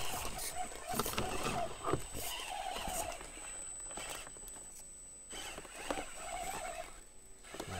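Axial SCX24 micro RC crawler's small electric motor and gears whining, the pitch rising and falling with the throttle as it climbs over rocks. Short clicks and knocks of the tires and chassis against the rock come through, over a faint steady high-pitched whine.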